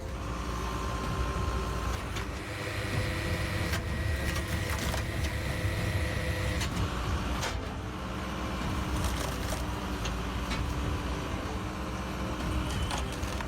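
Engine-driven log splitter running steadily, with occasional sharp knocks through the drone.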